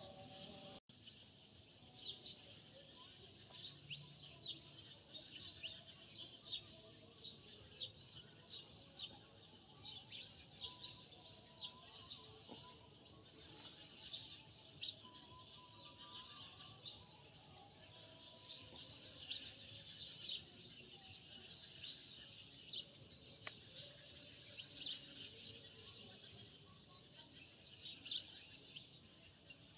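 Faint, continuous chirping of small birds, several short chirps a second, with a few thin higher calls wavering in the background and one small click about two-thirds of the way through.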